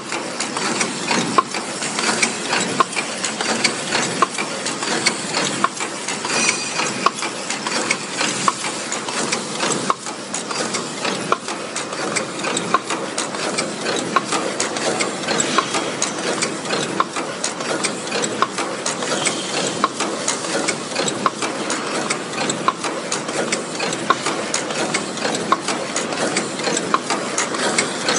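Automatic paper cup making machine running, its rotary forming turret and mechanisms making a fast, steady clatter of rapid clicks and knocks.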